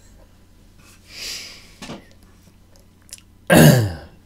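A man breathes in audibly, then gives one short, loud wordless vocal sound that falls in pitch, about three and a half seconds in.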